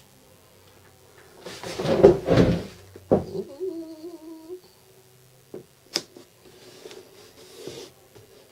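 Rustling and rubbing of an adhesive sticker's paper backing being peeled and the sticker pressed onto a plastic case lid, loudest about two seconds in. A short wavering hum comes midway, with a couple of light clicks.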